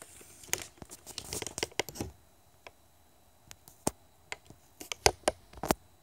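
Handling noise: scattered sharp clicks and crackles as the phone is moved and zoomed in close on the LED strip. They come thick in the first two seconds, then as single clicks every half second or so.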